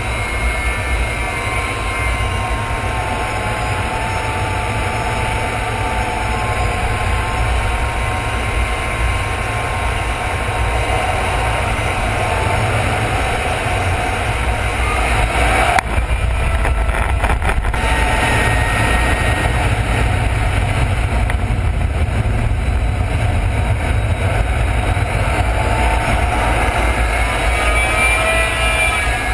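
Steady rumble of jet engine and airflow inside the cockpit of a Black Eagles KAI T-50B Golden Eagle jet trainer in aerobatic flight, with faint whining tones that drift up and down in pitch. A brief patch of crackling comes about sixteen seconds in.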